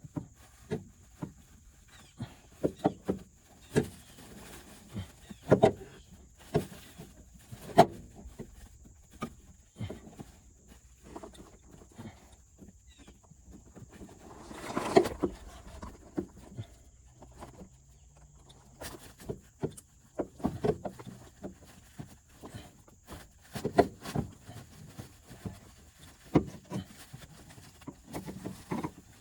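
Irregular knocks, clicks and taps of metal parts and tools being handled as a new power steering pump is worked into place, with a louder, longer clatter about fifteen seconds in.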